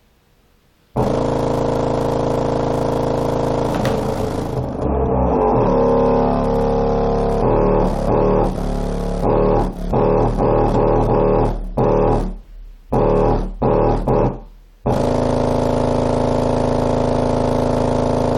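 Unboxed, freshly rebuilt JL Audio W7 subwoofer playing loud bass at high amplifier power, its cone making long visible strokes. It starts suddenly about a second in and holds a steady tone, then changes to choppy rhythmic notes with a couple of short dropouts, and turns steady again for the last few seconds.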